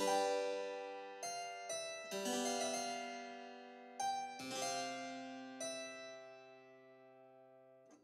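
Background music: a keyboard instrument playing slow struck chords that ring and fade between notes.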